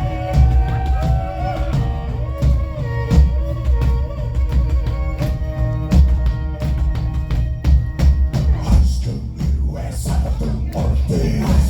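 Mongolian folk-metal music with a steady heavy drum and bass beat under long held melodic lines.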